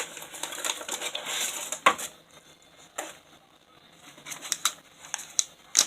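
Homemade slime being turned over and worked by hand: about a second of soft rustling, then scattered sticky clicks and pops, several close together near the end, the sharpest just before it stops.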